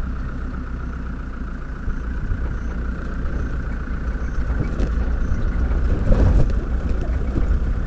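Open safari vehicle driving slowly through tall grass, its engine running with a steady low rumble. The sound briefly gets louder about six seconds in.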